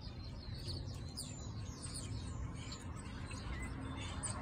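A flock of small birds chirping overhead: many short, high chirps overlapping throughout, over a steady low background rumble.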